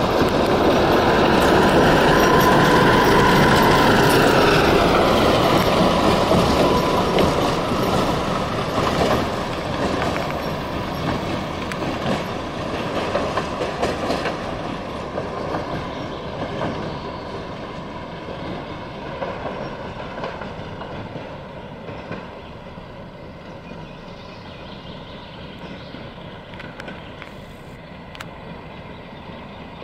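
A tram car passing close and running away along the track: the whine of its motors and the rumble of its wheels on the rails. The whine drips in pitch a few seconds in as it goes by, with a few clicks from the rail joints, and the sound then fades steadily as the tram recedes.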